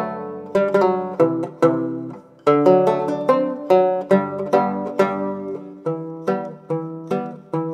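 Background music: a plucked string instrument picking a melody of separate notes, each struck sharply and ringing out as it fades.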